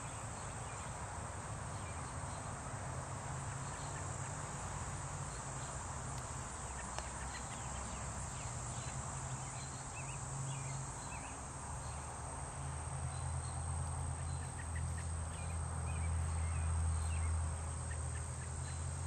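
Steady high-pitched drone of a summer insect chorus, with a low rumble underneath that grows louder in the second half.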